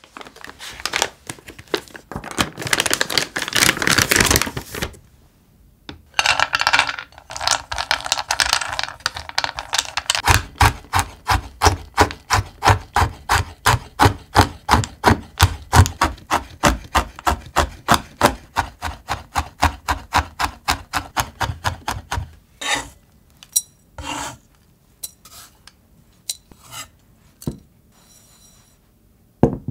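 Plastic packaging crinkling, then a large kitchen knife chopping dark chocolate discs on a wooden cutting board in a steady rhythm of about three to four cuts a second for some twelve seconds. A few scattered knocks and scrapes follow near the end.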